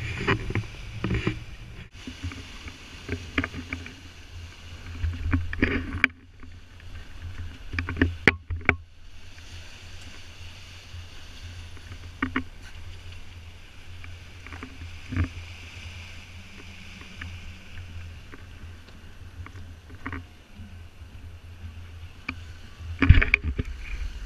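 Strong wind rumbling on the camera microphone, with water rushing and splashing along the hull of a sailboat under way in an 18–22 knot breeze. Irregular sharp knocks and slaps cut through.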